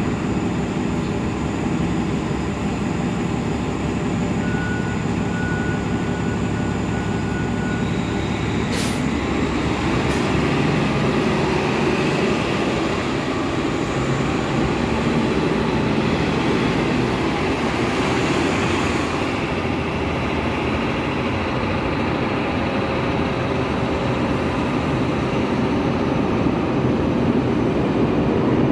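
City buses idling and pulling away from a curbside stop amid steady street traffic. A steady high tone sounds for a few seconds about five seconds in, and there are two sharp clicks soon after.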